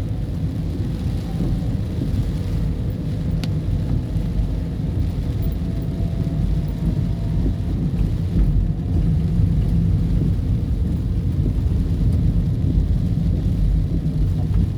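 Heavy storm rain pelting the roof of a moving vehicle, over a continuous deep rumble.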